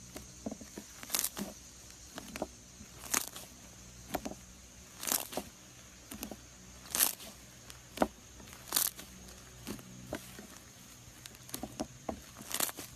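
Slime being squeezed and stretched by hand, giving irregular sharp clicks and pops about once a second.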